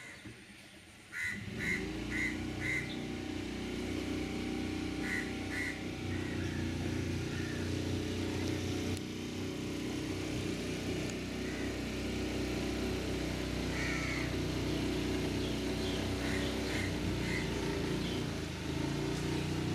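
A boat's engine coming in abruptly about a second in, then running steadily at a constant, even pitch, with a small shift in its note near the end, as the boat pushes through thick water hyacinth.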